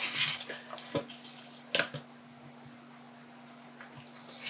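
Rotary cutter drawn along a quilting ruler, slicing fabric against a cutting mat: a short scraping cut at the start, followed by two sharp clicks about one and two seconds in.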